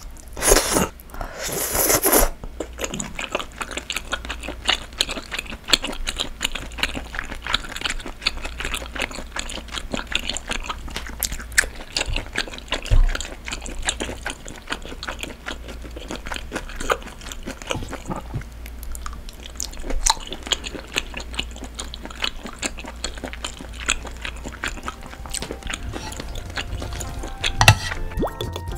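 Close-miked eating of spicy noodles and bean sprouts: two loud slurps of somyeon noodles about a second in, then wet chewing and crunching, with chopsticks clicking against the metal pan.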